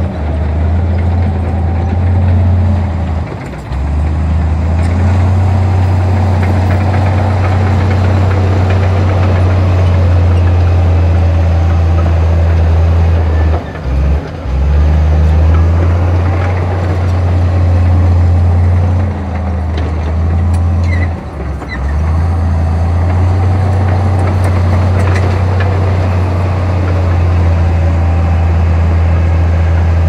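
Heavy diesel engine of earthmoving machinery running steadily with a deep drone, dipping briefly three times.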